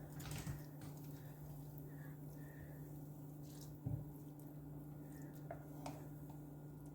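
Quiet kitchen background: a faint steady low hum, with a few soft knocks and faint watery sounds as the noodles sit in the pot.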